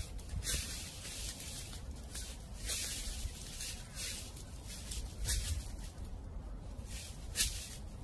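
Dry fallen leaves crunching and rustling underfoot in short irregular bursts, about one a second, over a low wind rumble on the microphone.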